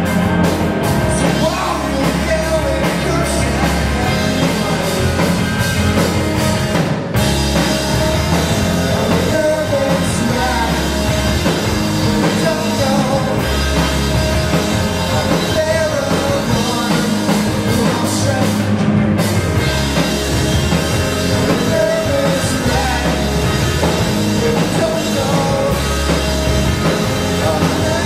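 Live pop-punk/emo band playing loud: electric guitar and drum kit, with singing. The band breaks off for an instant twice, about seven seconds in and again around two-thirds through.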